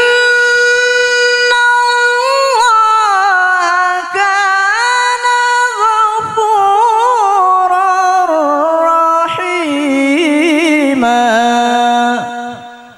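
A male Quran reciter chanting in the melodic tajwid style: one long, unbroken melismatic phrase of held notes with quick ornamental turns of pitch. It settles onto a lower held note about eleven seconds in and fades out at the end.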